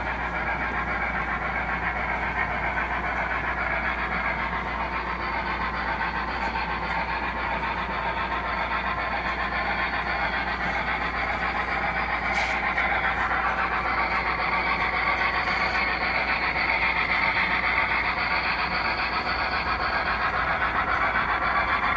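Model train running on the layout track: a steady whir of the locomotive motor and wheels on the rails, getting a little louder in the second half.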